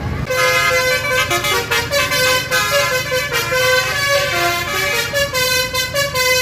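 Bus basuri telolet horn playing a fast melody of changing notes, several notes a second, starting just after the opening.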